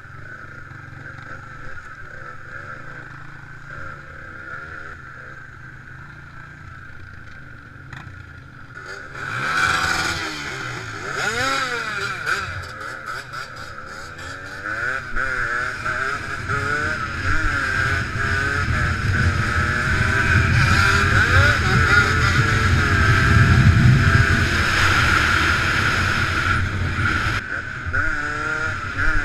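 Small dirt bike and quad engines, heard through a helmet-mounted camera. They run quietly for the first several seconds, then from about nine seconds in rev loudly, with the pitch rising and falling through the gears and throttle changes.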